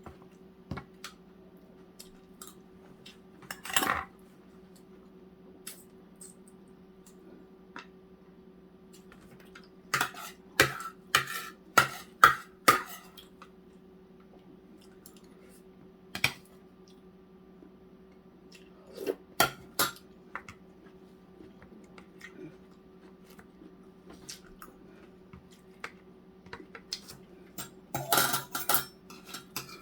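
Tableware clinking during a meal: utensils knocking on bowls and plates in scattered clicks, with a quick flurry of clinks about a third of the way in, more around two-thirds, and again near the end. A steady low hum runs underneath.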